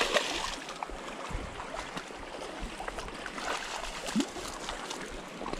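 Steady rush of shallow river water flowing over stones.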